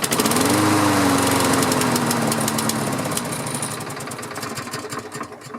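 Push mower's small engine catching on the pull and running for a few seconds, its speed sagging as it runs down and dies. It is starved of fuel, which the owner puts down to a stuck carburetor float after winter storage.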